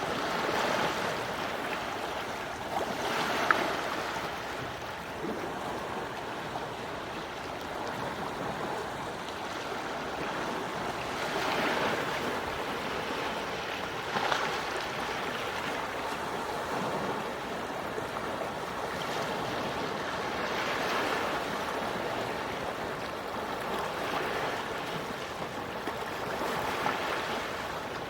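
Small, quiet sea waves washing onto the shore, a soft wash rising and falling every few seconds, with a few faint splashes.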